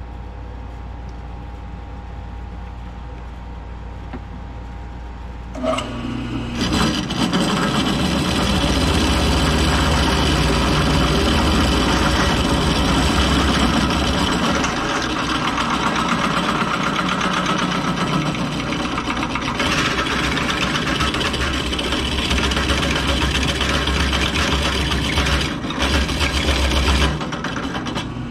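Floor-standing drill press running, then from about six seconds in its bit biting into an aluminum tube in a heavy cut, with a loud grinding chatter that carries on until near the end, when the cut stops.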